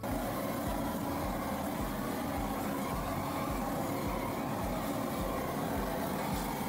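Propane weed-burner torch burning steadily while preheating a cast iron brake drum for welding, with a low throb about twice a second.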